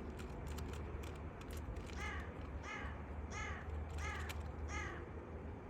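A crow cawing five times in a steady series, each call about two-thirds of a second apart, over a steady low hum. Quick sharp clicks, fitting a Rubik's cube being turned, come in the first second and a half.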